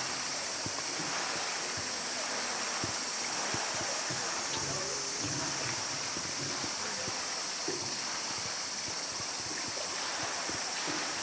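Steady rushing of water in a polar bear's pool, with a continuous high hiss over it.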